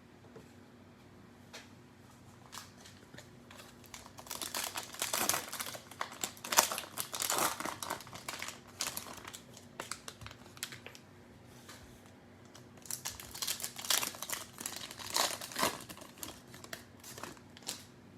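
Crinkling plastic cellophane wrapper of a Panini Mosaic cello trading-card pack being handled and torn open, in two spells of crackling, the second shorter.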